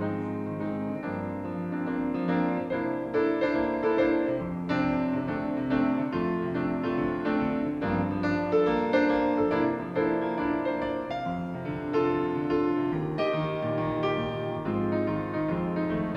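Grand piano playing a jazz solo with chords and melodic runs, without vocals.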